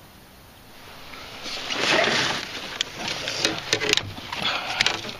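A swishing rush of noise about two seconds in, then a string of sharp knocks and clicks from handling inside a canoe.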